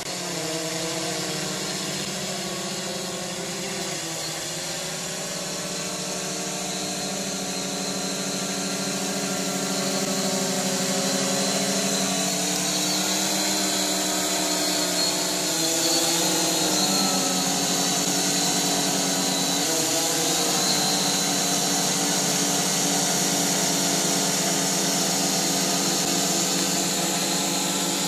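Sky Hero Spyder 700 X8 coaxial octocopter's eight electric motors and propellers whining steadily, the pitch dipping and rising a few times with throttle changes. The sound grows louder as the craft comes down to hover close by.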